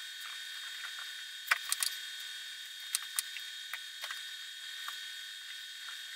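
Sparse light clicks and taps over a steady high-pitched electronic whine.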